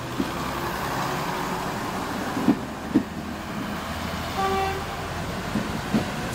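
British Rail Class 121 'bubble car' diesel railcars running past, their underfloor diesel engines droning, with two sharp clanks from the wheels about two and a half and three seconds in. A train horn gives a short single-note toot at about four and a half seconds.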